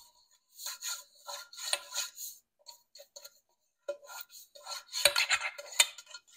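A hand rubbing around the inside of a glass loaf pan to spread cooking spray, in short, uneven rubbing strokes that come thicker and louder in the second half.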